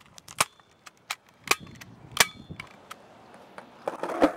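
Hand staple gun firing staples into a wooden utility pole: four sharp snaps in the first two and a half seconds, the second one fainter. Near the end a skateboard's wheels start rolling on the sidewalk, with a knock.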